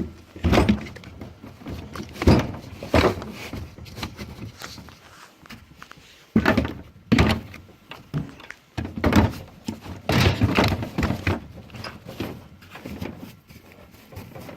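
Steel tool chest drawers being shut and opened, with thunks and clatter of tools shifting inside them, in a series of separate knocks over several seconds.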